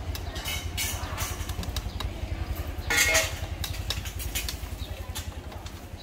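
Street traffic heard from a moving bicycle: a steady low rumble of wind and road noise on the microphone, with scattered clicks and a brief louder sound about three seconds in.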